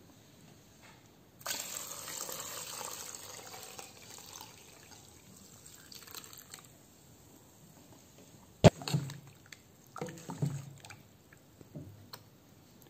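Coconut milk poured from a jug into a steel bowl of mashed banana and jaggery syrup: a steady splashing pour starts about a second and a half in and tapers off. Later comes one sharp knock, then a few softer knocks near the end.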